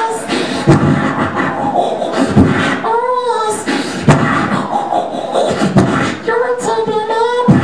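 Live beatboxing into a handheld microphone: mouth-made kick drum and snare hits with short sung notes that bend in pitch, woven in about three seconds in and again near the end.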